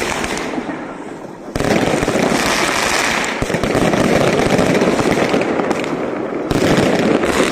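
Fireworks going off in a dense barrage: many bangs and crackles overlapping, getting louder about a second and a half in and again near the end.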